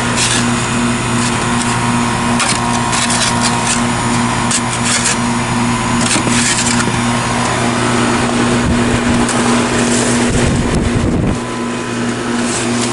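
Goodman GSH13 heat pump outdoor unit running with a steady hum, its coil partly packed with snow, while snow is scraped and brushed away around it in short, repeated bursts. A brief low rumble comes near the end.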